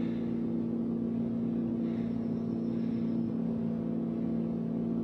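A Ferrari 250 GT California's V12 engine running steadily and evenly. The car sits up on a jack in reverse gear, its wheels spinning free.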